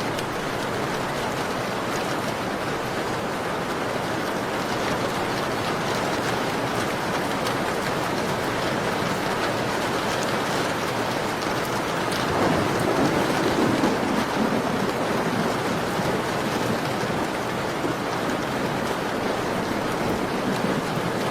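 Steady rain pattering on a window pane, an even dense hiss. About twelve seconds in, the sound swells deeper and louder for a couple of seconds.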